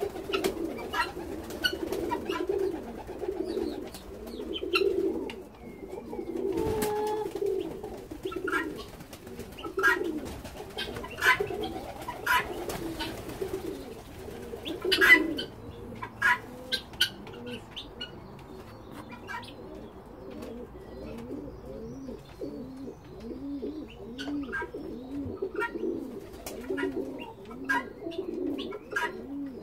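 Domestic pigeons cooing over and over, with many short, sharp chirps and calls from other birds scattered through it; the loudest sharp call comes about halfway through.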